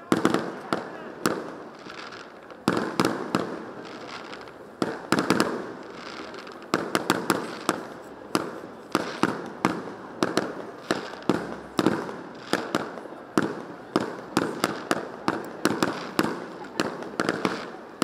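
Festive fireworks salute: shells bursting overhead in quick, irregular volleys of sharp bangs, each trailing off briefly.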